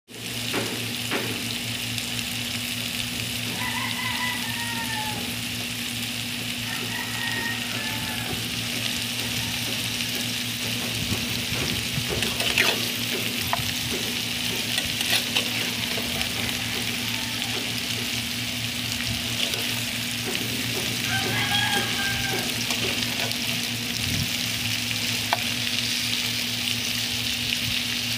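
Sliced bitter gourd sizzling in oil in a frying pan, with a steady hiss, while a metal spatula stirs it, scraping and clicking against the pan now and then.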